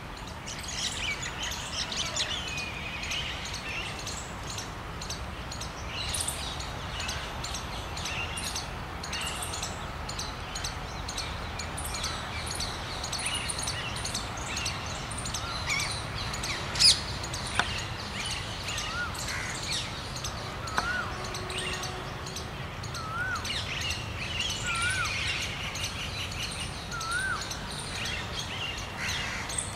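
Birds chirping and calling in the trees, with one bird repeating a short looping whistle about every second and a half in the second half. A single sharp click sounds about halfway through.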